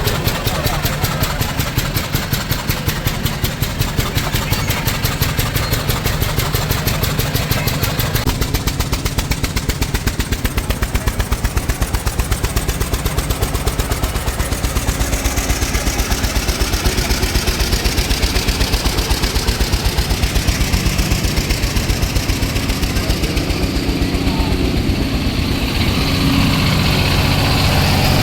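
Car engine idling with a rapid, even pulsing beat; a steadier, deeper engine sound grows louder near the end.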